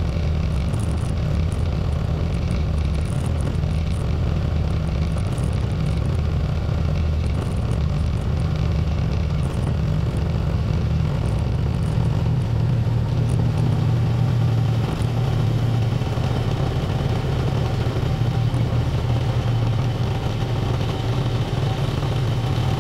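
Small tractor's engine running steadily while plowing snow, a deep, even drone that gets a little louder and firmer about halfway through.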